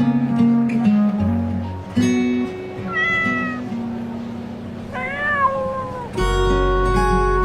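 Two kitten meows over guitar background music: a short rising meow about three seconds in, and a longer one that rises and falls about five seconds in.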